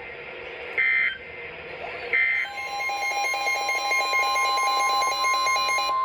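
Emergency Alert System broadcast tones from a weather radio: two short screeching SAME data bursts, then a steady 1050 Hz NOAA Weather Radio warning alarm tone from about two and a half seconds in, with a rapid electronic pulsing beep over it. This is the digital end-of-message code closing one severe thunderstorm warning, followed by the alert tone that opens the next.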